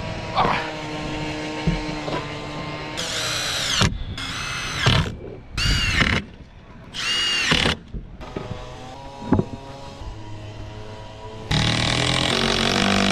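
Cordless impact driver running long screws into a pressure-treated lumber board, in five short runs, the last the longest, each rising and then falling in pitch. Between runs there are a few knocks.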